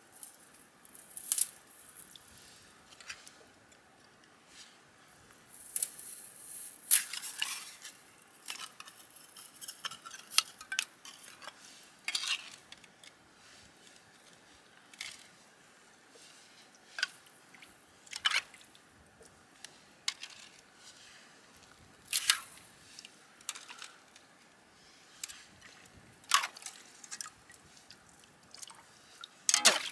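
Hands working in a shallow muddy pool, filling a clear plastic bag with water: irregular splashes, drips and crinkles of plastic.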